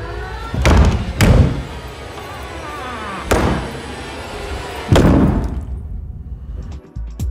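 A run of four heavy thuds, a second or two apart, over a low rumble with wavering eerie tones between them: horror-film sound-design hits. It all fades out near the end.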